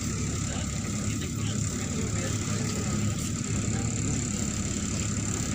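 Neman city bus heard from inside the passenger cabin: its engine runs with a steady low drone and no sudden changes.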